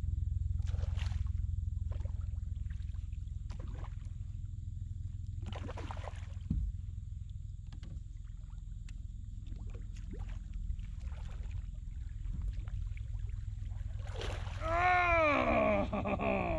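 A hooked smallmouth bass splashing at the surface beside a kayak as it is fought and netted, over a steady low rumble. Near the end there is a short, loud, pitched call that rises and falls.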